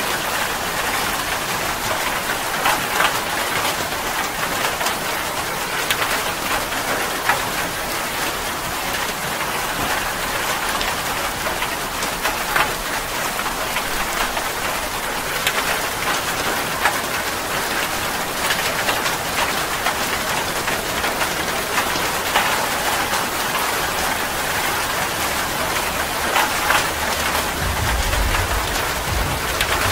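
Steady heavy rain falling on leaves and ground, with many sharp individual drop hits close by. A low rumble of thunder comes in near the end.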